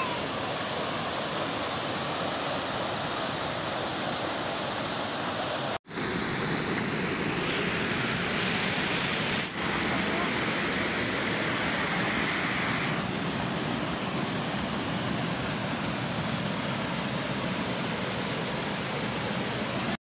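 A waterfall and its rapids rushing over rock ledges, a steady loud wash of water. It cuts out for an instant about six seconds in.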